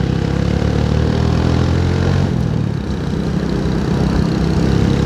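Motorcycle engine running steadily while riding in traffic, its note changing a little over two seconds in.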